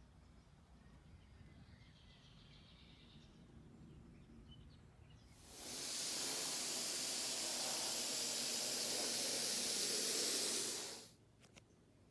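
Compressed air hissing through an Anest Iwata LPH 80 paint spray gun in one steady spray pass of about five and a half seconds, starting about five seconds in and cutting off sharply.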